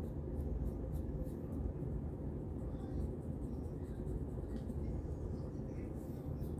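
Fine-tooth plastic comb scratching through short hair on a scalp, heard as faint repeated strokes over a steady low rumble.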